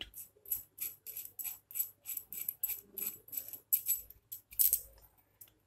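Metal tip-retaining nut of a soldering iron being unscrewed by hand to remove the replaceable tip: a quick run of light metallic clicks, about four or five a second.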